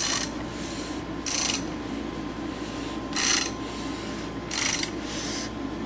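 Short mechanical rasps, five of them about one and a half to two seconds apart, as the crankshaft of a stroker Ford flathead is turned over by hand to check rod-to-cylinder clearance.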